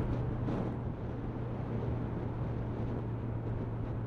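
Motorcycle engine running at a steady cruise of about 40 mph, one even drone under a constant rush of wind and road noise.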